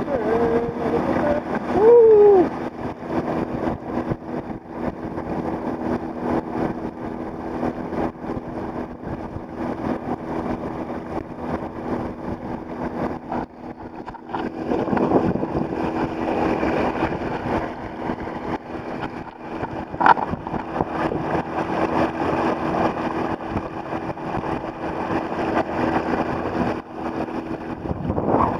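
The motor of the boat towing the kayak runs with a steady hum, over water rushing along the kayak's hull at speed. A short, loud sliding tone comes about two seconds in, and a sharp click about twenty seconds in.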